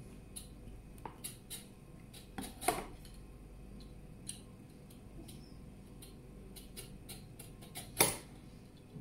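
A vegetable peeler scraping a carrot and kitchen scissors snipping a hot dog: a scatter of light clicks and scrapes, with a louder knock nearly three seconds in and a sharper, louder one near the end.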